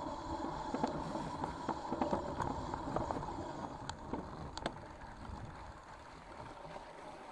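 Mountain bike riding down a leafy, wet forest trail: tyres rolling over leaf litter and wet ground, with many sharp rattles and knocks from the bike over bumps.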